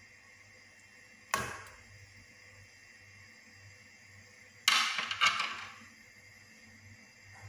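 A single sharp knock about a second in, then a quick run of three louder knocks or clatters around the middle, each ringing out briefly, over a faint steady hum.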